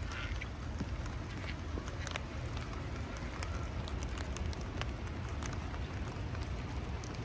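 Rain falling, with many scattered ticks of individual drops over a steady low rumble.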